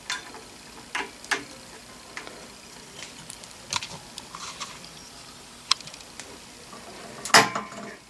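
Scattered light metallic clicks and taps as an aluminum quick-adjust depth stop block is fitted onto a drill press's threaded depth-stop rod, with a louder cluster of knocks near the end.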